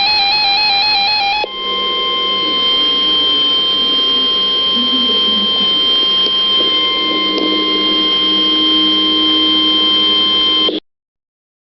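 Music playing with a fast, trilling two-note figure is cut off about a second and a half in by an emergency alert attention tone. The tone is one steady, high, unwavering pitch that holds for about nine seconds and then stops abruptly.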